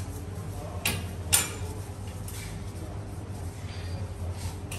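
A hand-held scrubbing pad rubbed across glazed wall tiles, wiping grout haze off their faces in short swishing strokes. Two sharp clicks come about a second in, the second the loudest sound, over a steady low hum.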